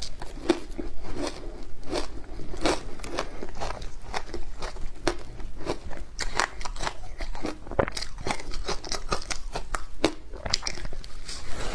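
Ice being bitten and chewed close to the microphone: a dense run of sharp, irregular crunches and crackles, several a second, throughout.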